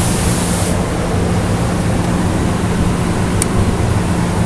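CNC profile cutting machine running during a cut: a steady rushing noise with a low hum, a short high hiss in the first second, and a single sharp click about three and a half seconds in.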